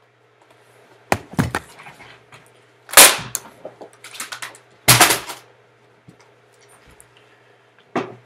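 A string of loud bangs and crashes of things being slammed and knocked about, the loudest about three seconds in and a last sharp one near the end.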